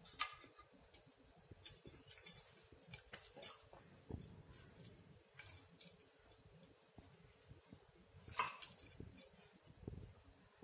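Faint scattered clicks and light clinks of bangles and handling as hands fill and press shut small rounds of dough, with a brief louder rustle about eight seconds in.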